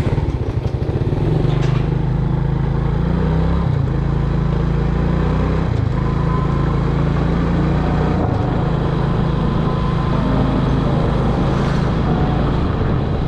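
Small motorbike engine pulling away and running as the bike rides along, louder within the first second. The engine note steps up or down a few times as the speed changes.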